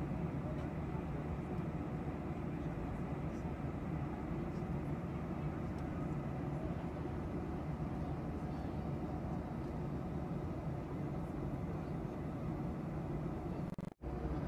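Steady cabin noise of a jet airliner in cruise: an even rumble of the engines and rushing air, heaviest in the low end. It cuts out for a split second near the end.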